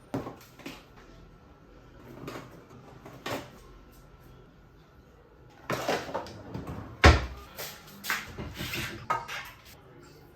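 Scattered knocks, clatters and handling noises in a small room, with a sharp, loud knock about seven seconds in.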